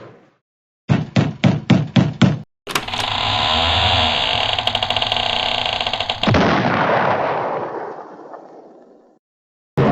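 Cartoon sound effects: a rapid run of about seven sharp knocks or shots, then a loud, noisy rushing sound that breaks off after a few seconds into a long fading tail.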